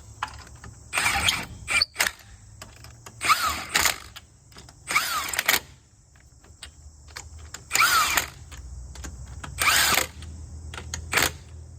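Impact gun running lug nuts back onto a car's wheel studs in five short bursts, snugging them rather than tightening them fully.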